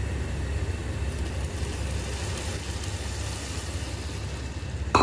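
Hot fried-onion tadka sizzling as it is tipped into a pot of dal, over a steady low rumble. A sharp clink near the end.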